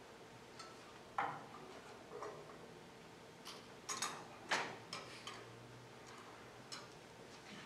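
Scattered light clicks and knocks of small objects being handled at a ceramic water bowl and its vessels, the loudest about a second in and a pair around four to four and a half seconds in.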